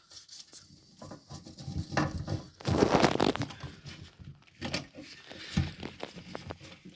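Small clicks, taps and scraping of hands working screws into a toilet cistern's plastic parts, with a louder scraping rustle about three seconds in and a couple of sharper knocks after it.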